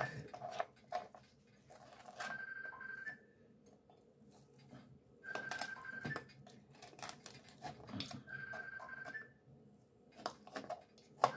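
Knife and fork clicking and scraping on a plastic cutting board as cooked pork is cut up, over an electronic beep of just under a second that repeats about every three seconds.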